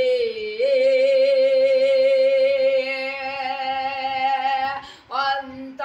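A boy singing a Bengali naat unaccompanied, holding one long note with a slight waver for about four seconds. He breaks off briefly and starts a new phrase near the end.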